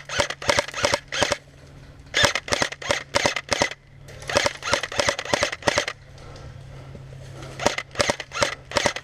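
Airsoft guns firing: four short volleys of sharp pops, each of several shots fired in quick succession, with pauses between them.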